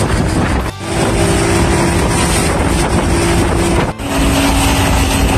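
Fishing boat's engine running steadily under way at sea, with wind buffeting the microphone. The sound drops out briefly twice, about a second in and near the end.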